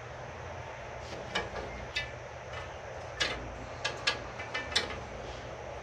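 Black metal trellis rods and connectors clicking and clinking as they are fitted together: several sharp, separate clicks with a short metallic ring, the loudest near the end.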